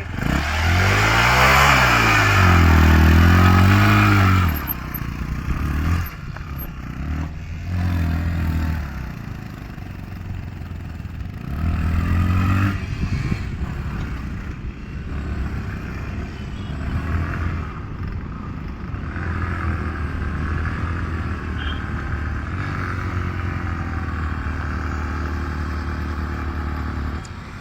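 Motorcycle engine revved hard, its pitch climbing and falling for about four seconds, then running more steadily, with short bursts of throttle about eight and twelve seconds in.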